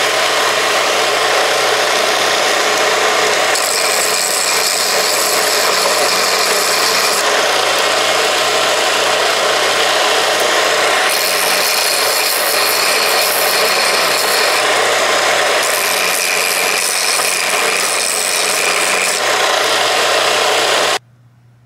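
Bench belt-and-disc sander running steadily over its motor hum, growing harsher in three stretches as an engine connecting rod is pressed to the abrasive belt to take off weight for balancing. It cuts off suddenly near the end.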